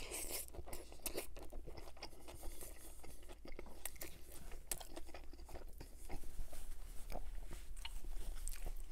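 A crunchy bite into a crispy chicken sandwich on a sesame bun, with the loudest crunch right at the start. Irregular crunchy chewing follows.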